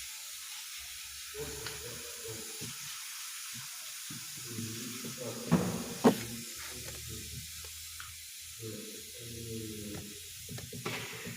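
Worn front steering tie rod end knocking as the steering is worked: two sharp knocks about five and a half and six seconds in, with fainter clicks, over a low hum that comes and goes.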